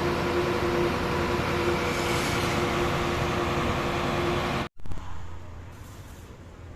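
Fuso truck's diesel engine running steadily at a raised idle, its throttle wedged open so it charges the battery. About two-thirds of the way through the sound cuts off abruptly, giving way to a much quieter low hum.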